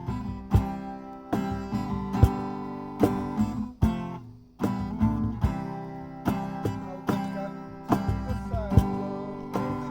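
Acoustic guitar strummed in chords, with a brief break about four seconds in before the strumming resumes.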